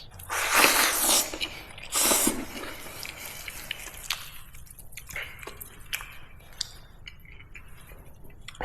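A person slurping rice noodles in tomato and egg: two loud slurps, the first about a second long and the second shorter, followed by quieter wet chewing sounds with small clicks.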